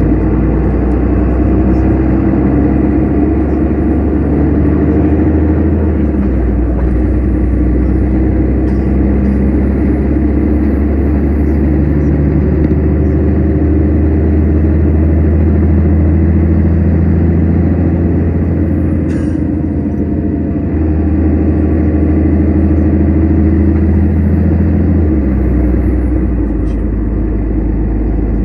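Inside a moving Mercedes-Benz Citaro Facelift city bus: a steady low drone from the diesel engine and drivetrain, with road and tyre noise. The low engine note changes about six seconds in and again near twenty and twenty-five seconds in.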